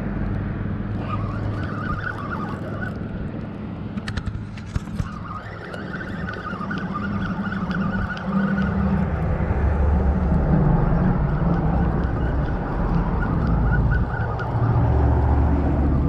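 Road traffic passing on a bridge: a steady low rumble and engine hum that swells from about halfway through. A quick run of sharp clicks comes about four seconds in.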